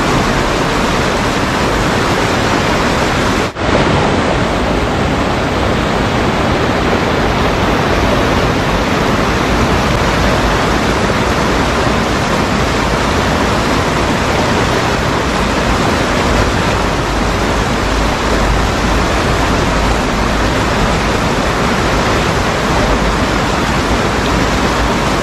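Water rushing steadily and loudly over a river weir's rocks and concrete blocks, dipping for a moment about three and a half seconds in.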